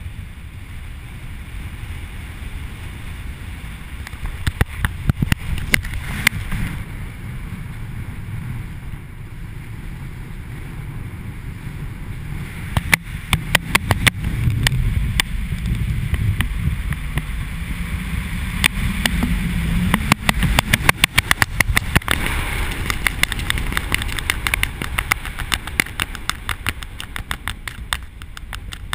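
Wind buffeting the camera's microphone under an open parachute: a steady low rumble with several runs of rapid flapping clicks, the longest through the middle of the stretch.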